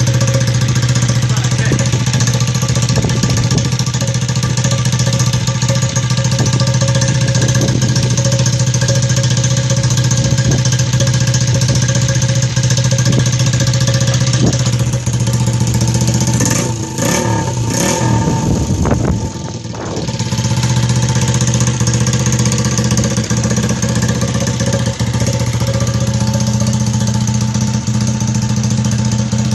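Custom motorcycle engine running at a steady idle, with a short unsteady stretch a little past halfway where the engine note wavers.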